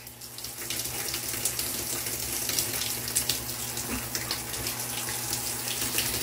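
Water running steadily into a bathtub, an even splashing hiss that swells about half a second in.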